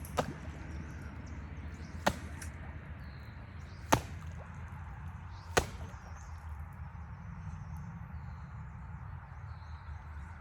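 Four sharp chopping blows, evenly spaced about two seconds apart, then no more, over a steady low rumble.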